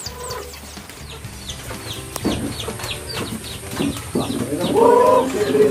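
Free-range chickens clucking close by, with a louder call about five seconds in, over a steady run of rapid high chirps.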